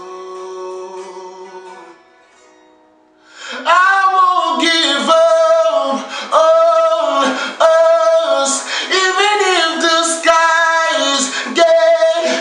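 A man singing a song with sliding, bending pitch. It starts loud about three and a half seconds in, after a brief lull. In the first two seconds a few held notes fade out.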